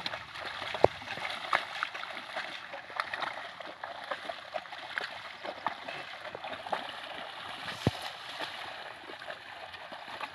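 Muddy water splashing and sloshing as a pair of bullocks wade through a flooded paddy field, dragging a wooden levelling board through the mud. Two sharp knocks come through, about a second in and about eight seconds in.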